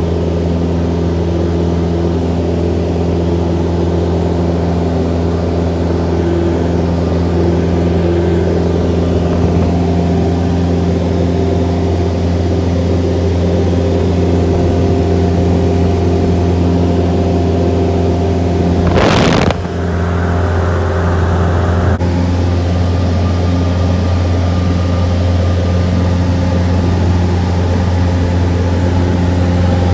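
Cessna F152's four-cylinder piston engine and propeller droning steadily in cruise flight, heard from inside the small cabin. About two-thirds of the way through there is one brief burst of noise.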